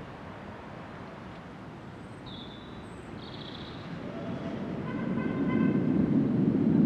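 Class 37 diesel locomotive's English Electric V12 engine drawing nearer at low speed, its low rumble swelling steadily louder over the last few seconds. Two short high chirps come about two and three seconds in.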